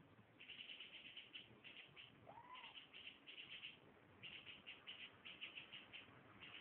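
Faint cat chattering: bursts of quick, high chirps in runs, with one short rising-and-falling mew about two and a half seconds in. The cat is a tabby watching out of a screened window.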